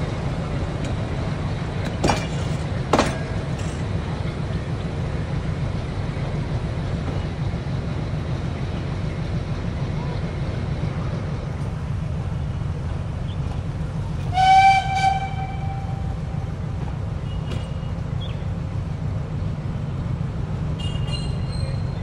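Nilgiri Mountain Railway train pulling out with a steady low rumble, two sharp clacks a couple of seconds in, and one short whistle blast from its oil-fired steam locomotive about two-thirds of the way through.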